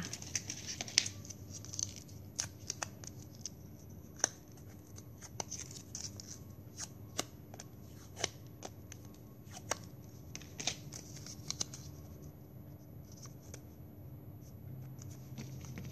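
Scissors snipping plastic drinking straws into petal shapes: a string of short, sharp snips at an irregular pace, roughly one every half second to second.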